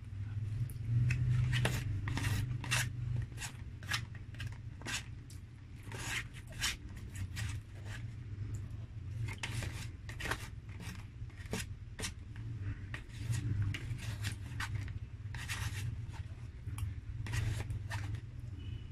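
Metal spoon scraping rice from a nearly empty paperboard takeout box: many short, sharp scrapes and taps at an uneven pace, over a steady low hum.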